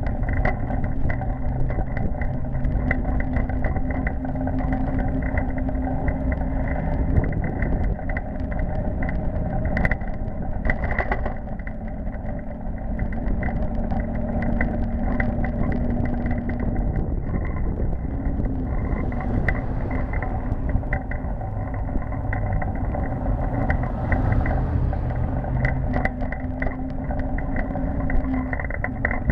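Steady rumble of wind and tyres on the road while riding an electric kick scooter, with a steady whine from its motor and a few brief clicks from bumps.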